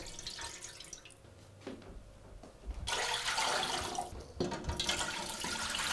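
Broth and then water poured from a plastic jug into a large metal stockpot, splashing onto the liquid already in the bottom, in a few separate pours with short breaks between them.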